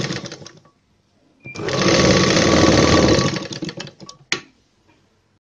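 Electric sewing machine stitching through blouse fabric in two short runs: the first stops about half a second in, and the second runs for about two seconds from a second and a half in. A single sharp click follows near the end.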